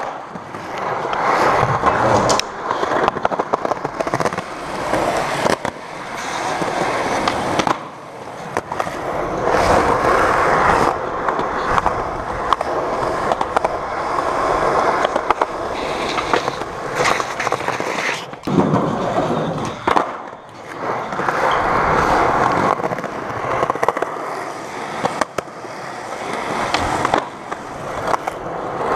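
Skateboard wheels rolling on concrete, a rough rolling noise that swells and fades as the rider pushes and slows, broken by many sharp clacks of the board.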